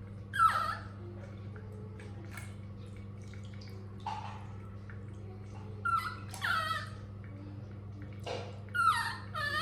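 Baby monkey giving short, high squealing calls at irregular intervals, each mostly falling in pitch, over a steady low electrical hum.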